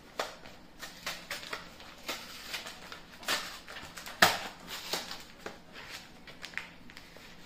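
A brown paper mailer envelope being handled and torn open by hand: irregular crinkles and short rips of paper, the sharpest about four seconds in.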